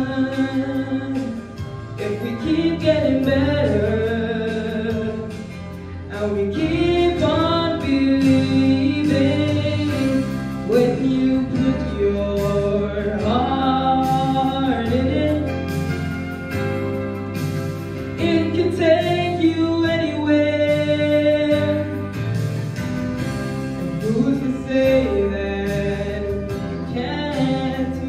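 A young male singer singing into a handheld microphone over an accompaniment of held bass and chord notes, with long sliding vocal runs rather than clear words.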